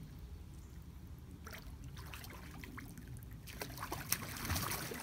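Pool water splashing and trickling from a toddler's kicking as he swims, the splashing getting busier over the last second and a half.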